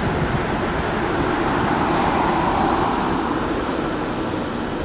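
Airbus A320neo's Pratt & Whitney PW1100G geared turbofan engines running at taxi power: a steady jet roar that swells a little about two seconds in, then eases off.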